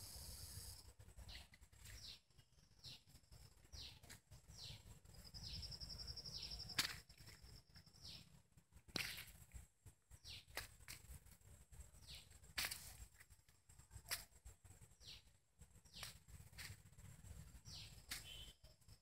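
Faint background birdsong: short, high, falling chirps repeated every second or so, with a brief rapid trill about five seconds in. Scattered faint clicks come between the chirps.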